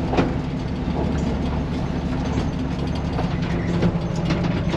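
Freshly rebuilt Chevrolet 250 inline-six running steadily as the old truck drives slowly, heard from inside the cab, with scattered clicks and rattles from the truck.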